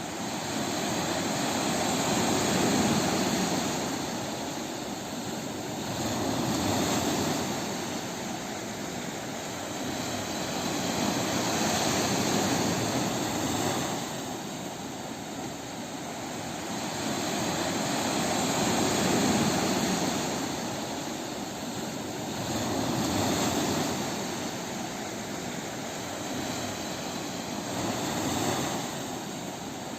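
Ocean waves breaking on a beach: a continuous rush of surf that swells and eases every few seconds as each wave comes in and draws back.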